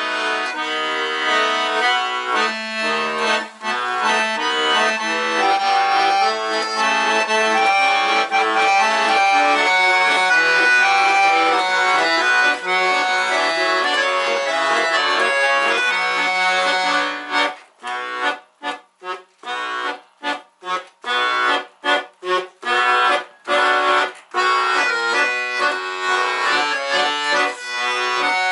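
Weltmeister button accordion (bayan) playing a Soviet wartime song: a melody over held chords, then about two-thirds through a run of short, detached chords with brief silences between them, about two a second, before the smooth melody returns near the end.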